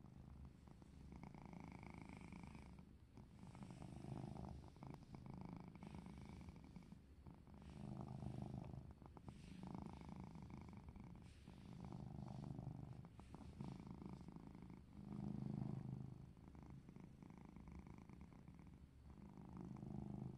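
Domestic cat purring steadily while being stroked, the low rumble swelling and fading in a slow rhythm about every two seconds.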